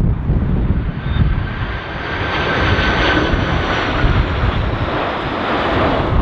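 Airbus A330-300 jet airliner passing low on final approach, the whine of its engines swelling about two seconds in, with a steady high tone through it. Gusty wind buffets the microphone.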